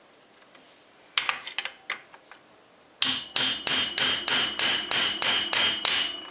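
A hammer rapping about eleven times, roughly three blows a second, on a flat steel bicycle wrench hooked onto a bicycle's bottom bracket cup, each blow ringing high and metallic, to knock the stuck cup loose. A few lighter metal clicks come first, about a second in, as the wrench is handled.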